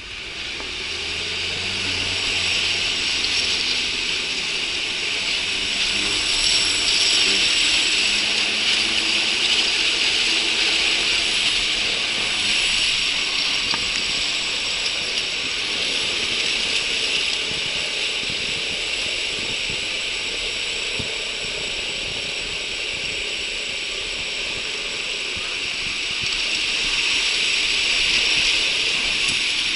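The steel rollers of a long roller slide rattling and whirring in a continuous clatter as a rider slides down over them, building up over the first two seconds.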